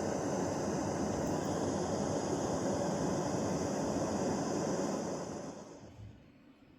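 DREAMIE sleep-aid device playing a soundscape track through its speaker: a steady rushing noise that fades out about five seconds in.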